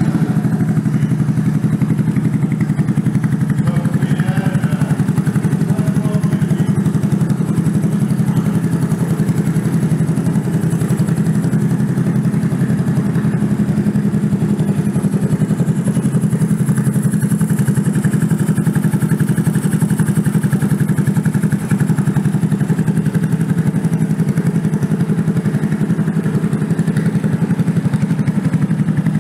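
2014 Honda Grom's 125 cc single-cylinder engine idling steadily through an aftermarket MNNTHBX exhaust.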